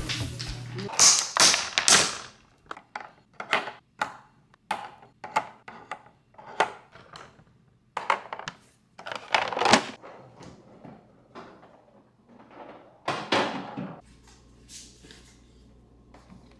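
Irregular knocks, clunks and clatters of household objects being handled and set down, several a second at times, loudest about a second in, near the middle and again about three seconds before the end.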